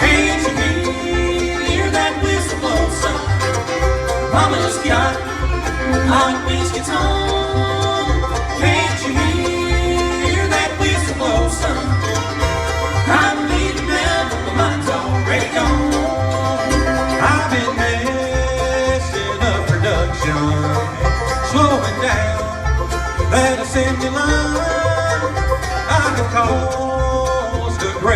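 Bluegrass band playing live, an instrumental introduction with banjo and guitar over a steady, even bass beat.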